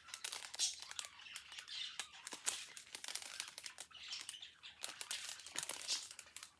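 Small plastic bags of diamond painting drills crinkling and rustling as they are handled one after another, in a run of quick irregular rustles and clicks.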